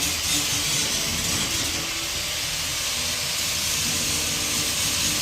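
Steady hissing noise with no breaks.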